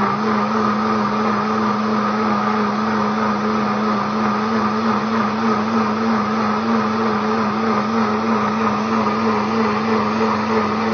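Pampered Chef Deluxe Cooking Blender running its heated wash cycle: the motor spins steadily with an even hum, churning the hot soapy water in the jar.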